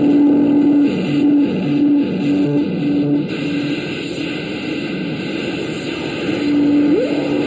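Experimental electronic sound machine played by hand on its metal touch studs: a low droning tone that stutters on and off over a harsh, static-like noise, dropping out for a few seconds before returning and sliding up sharply in pitch near the end.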